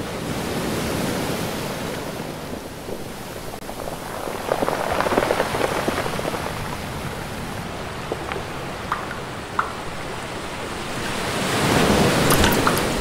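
Rushing water noise, swelling about five seconds in and again near the end, with scattered small drips and crackles.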